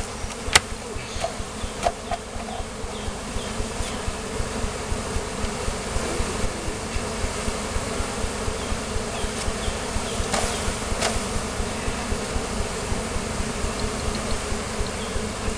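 Honeybees buzzing steadily in a dense, continuous hum as they are installed into a hive, with a few short sharp knocks.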